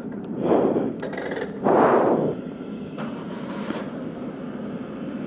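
Petrol pump nozzle filling a motorcycle's fuel tank, a steady low rush, with two short rustling bursts about half a second and two seconds in.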